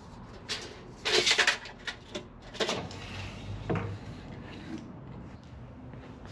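A wrapped ratchet strap being handled and put away: rubbing and scraping, with a short burst of rough noise about a second in and a few knocks after.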